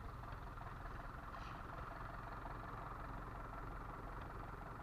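Fishing boat's engine running steadily, an even low drone.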